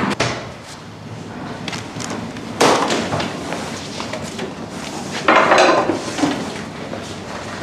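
Knocks and clatter of handling in a hospital room: a sharp knock about two and a half seconds in, then a longer rattling clatter a little after five seconds as a wheeled hospital bed is pushed in through a glass door.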